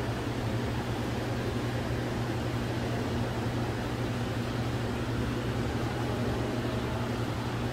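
Steady low mechanical hum over a constant even noise, with no change in level.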